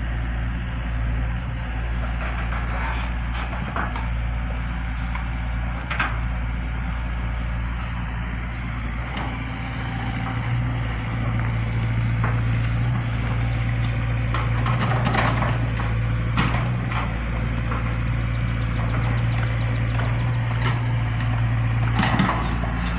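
Zoomlion excavator's diesel engine running steadily under work, growing louder about ten seconds in, with a few sharp knocks and clanks scattered through.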